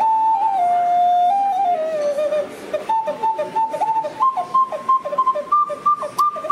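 Ceramic ocarina played with a clear, pure tone: a held note that steps down in pitch over the first two seconds or so, then a run of quick, short repeated notes that climb step by step to higher notes toward the end.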